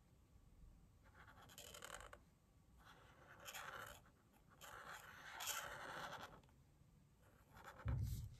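Felt-tip marker scratching across paper in three strokes of about a second each, faint, with a soft low thump near the end.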